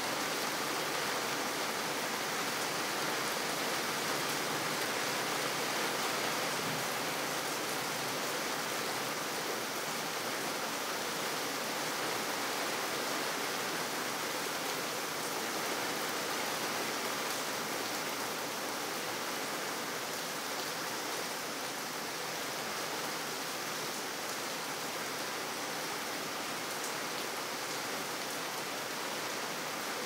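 Steady rain falling on wet city pavement: an even, unbroken hiss.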